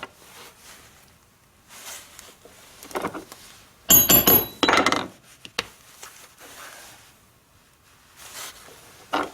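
Mallet striking a pronged leather stitching punch, a few sharp strikes with a brief metallic ring about four seconds in, among quieter knocks of tools and leather being handled.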